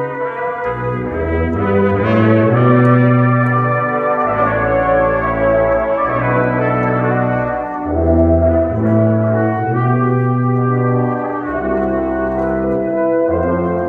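Brass quintet playing a piece together, the trumpets carrying the upper line over held low tuba notes that change step by step about every second.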